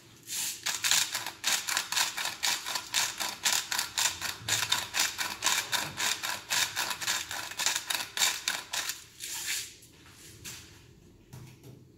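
Hand-twisted salt mill grinding rock salt: a rapid run of crunching clicks, about four a second, that stops about ten seconds in.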